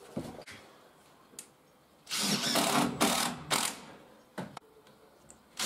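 Cordless driver screwing a screw into the staircase timber. It runs for just under two seconds from about two seconds in, then gives a short second burst. A few light clicks come before it.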